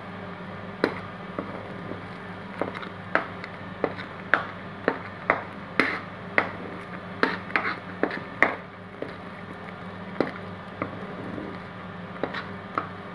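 A spoon stirring a thick carrot-and-milk mixture in a pan, knocking and scraping against the pan in irregular strokes, roughly one or two a second, over a steady low hum.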